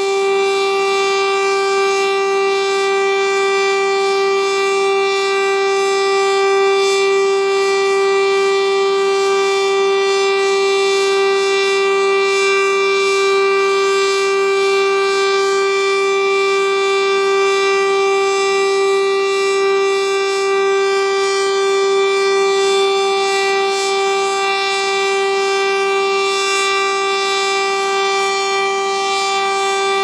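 Federal STL-10 eight-port, 10-horsepower outdoor warning siren sounding a steady alert on its monthly test, holding one unchanging pitch with strong overtones at an even volume.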